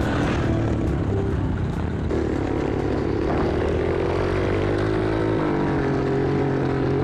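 Dirt bike engine running while riding. The engine note rises about two seconds in and drops back a few seconds later.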